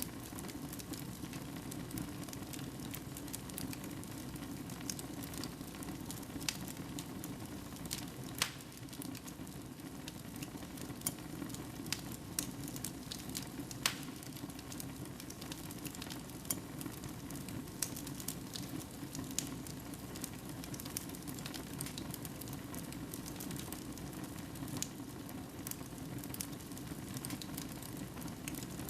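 Wood fire burning in a fireplace: a steady low rumble of flames with irregular sharp crackles and pops, two of them noticeably louder.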